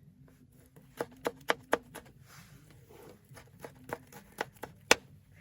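Knife strokes on a chopping board as vegetables are cut finely: a quick run of about four strokes about a second in, then scattered lighter taps and one sharper knock near the end.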